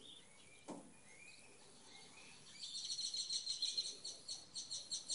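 A bird chirping, with a few faint short chirps and then, from about halfway in, a fast run of high repeated notes, about five a second.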